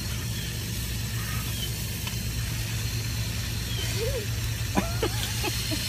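Water hissing steadily from a garden hose spray nozzle as the spray rains onto leafy plants, with a steady low hum underneath.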